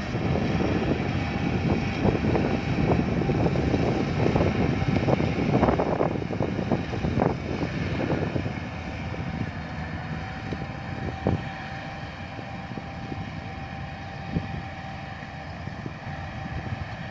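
Yanmar AW82V combine harvester running as it cuts rice: a steady machine drone with a thin constant whine. It is loud and rough for the first half, then drops to a quieter, steadier level about halfway through.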